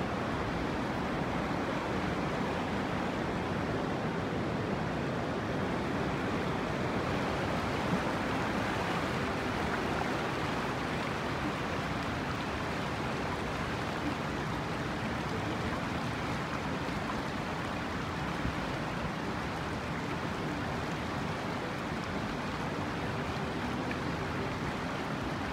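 River rapids rushing steadily over rocks and shallows.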